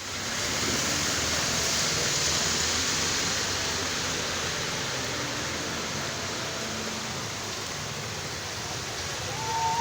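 Heavy rain falling steadily, an even hiss of water. Near the end, music with whistle-like notes starts.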